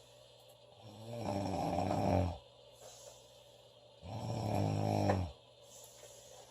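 A woman snoring loudly: two long, pitched snores about three seconds apart, with quiet stretches between them.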